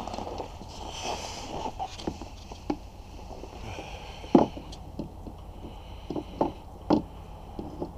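Jumper-cable clamps and metal parts being handled in a snowmobile's engine bay: scattered clicks and knocks, the loudest two about four and a half and seven seconds in, over a steady low rumble.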